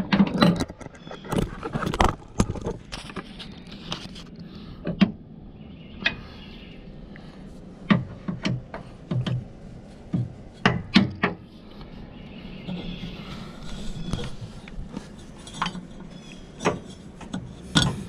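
Irregular metallic clanks and knocks of a half-inch breaker bar and the deck belt being handled on an Exmark Lazer Z mower deck, as the belt is tensioned and slipped back onto the deck pulleys.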